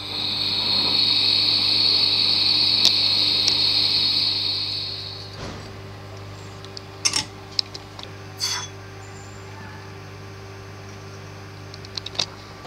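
Jeweller's gas torch flame hissing steadily while heating a platinum piece, cutting off about five seconds in. After that come a few light clicks and clinks over a low steady hum.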